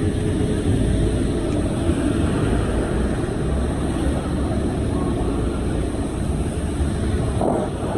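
City tour bus in motion, heard from on board: a steady low engine drone mixed with road noise.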